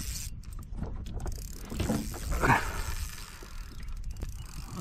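2500-size spinning reel clicking and whirring under load while a big redfin is played on the line, over a low rumble.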